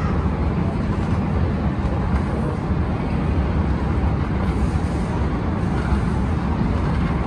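Otis 2000 inclined travelator running with a rider aboard: a steady low rumble from the moving walkway.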